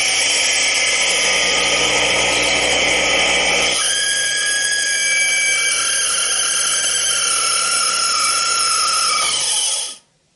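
Eberle 220 V three-phase induction motor, running on newly replaced bearings, free-running at full speed with a steady whine of several tones. The mix of tones shifts about four seconds in, and the sound cuts off sharply just before the end.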